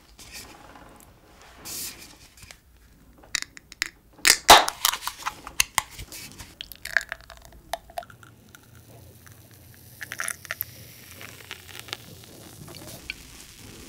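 Black disposable gloves being pulled on, with rubbery crinkles and sharp snaps, loudest about four and a half seconds in. Then a can of Kozel beer is handled and poured into a glass, a quieter steady pour from about halfway through.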